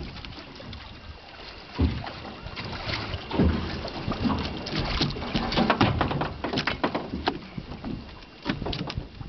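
Knocks, clicks and clatter of fishing gear and hands working at the side of a small boat, over a steady rush of wind and water.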